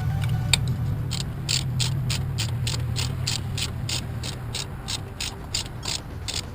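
Ratchet wrench being cranked, its pawl clicking about three times a second in an even rhythm, over a low steady hum that fades in the second half.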